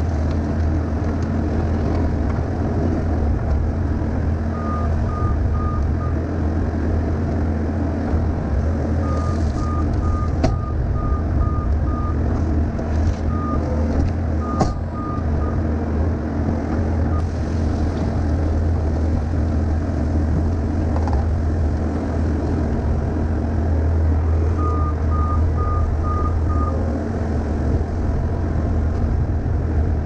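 Bobcat skid steer's diesel engine running steadily at working speed, with its backup alarm beeping in short runs of about four beeps a second, four times, as the machine reverses.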